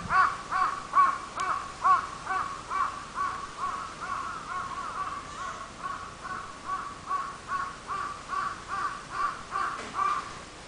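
A bird calling in a long, even series of short calls, about two or three a second. The calls are loudest at the start and stop shortly before the end.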